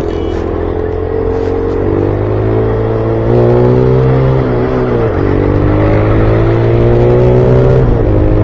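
TVS motorcycle engine pulling up through the gears while riding. Its pitch climbs, drops sharply at a gear change about five seconds in, then climbs again and drops once more near the end.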